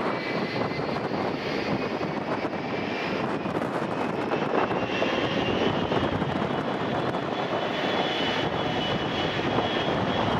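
Boeing 777 jet arriving to land, its engines making a steady rushing noise with a high whine that shifts in pitch about halfway through.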